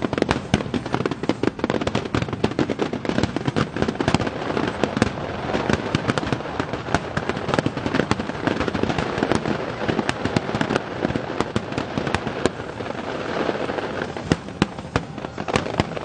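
A rapid barrage of aerial firework shells bursting, the bangs and crackle overlapping densely, with a few sharper single bangs near the end.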